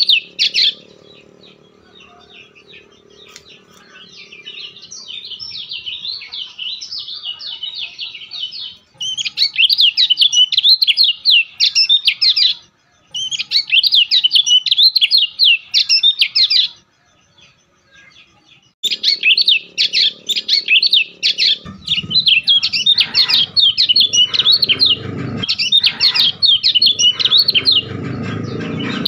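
A small bird singing long, fast warbling phrases in several runs of a few seconds each, with short pauses between them. A low hum sits underneath at the start and again in the last third, where some low rumbling also comes in.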